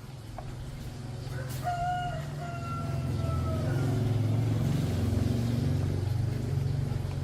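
A rooster crows once, a long call that falls slightly in pitch, starting about two seconds in. Under it runs a steady low machine hum that grows louder halfway through.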